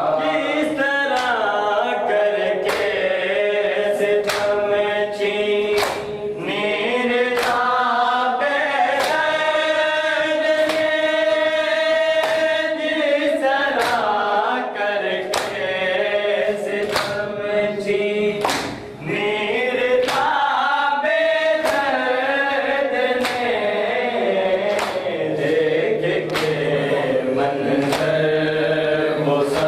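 Men chanting a noha together, with a steady beat of hands striking bare chests (matam) somewhat more than once a second.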